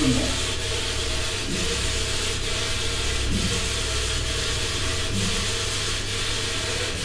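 Saree polishing machine running steadily, its motor humming as the cloth feeds over the rollers, with a faint regular tick a little under once a second.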